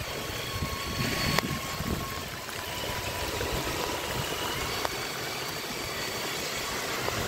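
Wind buffeting the phone microphone and rain over rushing floodwater, with the faint steady whine of RC crawler trucks' electric motors as they wade through. There are two sharp ticks, about a second and a half and five seconds in.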